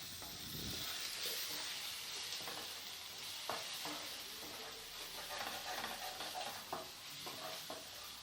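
Tomato paste and spice powders sizzling in oil in a pan while being stirred with a spoon, a steady soft sizzle with occasional light scrapes of the spoon against the pan.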